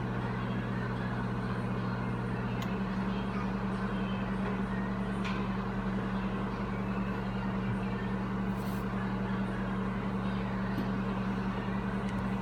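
Microwave oven running on a low power setting: a steady electrical hum with the fan whirring, its tone changing slightly about three seconds in.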